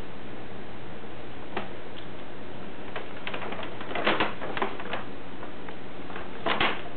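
A cat's paws and claws scrabbling in a paper bag: short crackles and scratches of paper. There is one about a second and a half in, a flurry from about three to five seconds, and another pair near the end, over a steady hiss.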